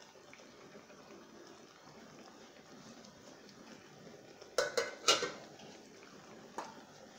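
Chicken stew simmering softly in a pan, with a quick run of about four sharp metal clinks of utensils and cookware about four and a half seconds in, and one more clink near the end.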